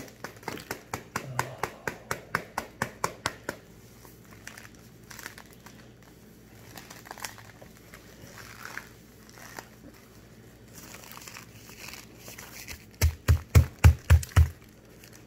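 A packed block of Argo corn starch being squeezed in its paper package, giving a quick run of sharp crunches, about four a second, for the first few seconds, then scattered softer crunches. Near the end there is a short run of about six loud low thumps as the package is handled right up against the phone.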